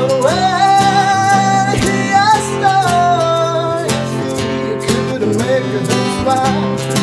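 Live acoustic song: a man singing long, held notes with no clear words over strummed acoustic guitar.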